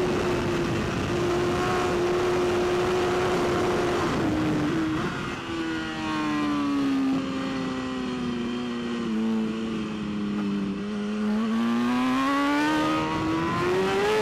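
Racing superbike's inline-four engine heard onboard at speed over a steady rush of noise. It holds a high, steady pitch and wavers briefly about four seconds in. The engine speed then sinks slowly for several seconds before climbing again near the end.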